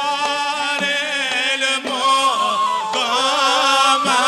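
Hadrami zarbadi song: male voices singing a qasida in a wavering, ornamented melody, with a few sharp percussion strikes.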